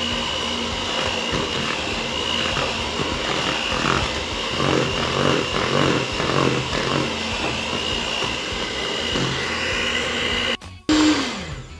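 Electric stand mixer running steadily with its twin beaters in cake batter, a constant motor whine over the churning of the batter. It switches off shortly before the end, with a brief falling whine as it winds down.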